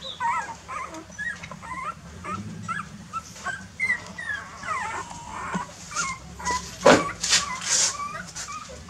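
A litter of young puppies whimpering and squeaking: many short, high-pitched cries that bend up and down. A sharp click about seven seconds in, followed by a few short bursts of hiss.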